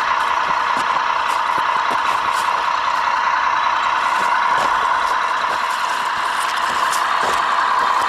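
Radio-controlled model Peterbilt truck driving slowly over a dirt track: a steady mid-pitched drone from the model's drive, with scattered small clicks from gravel under the tyres.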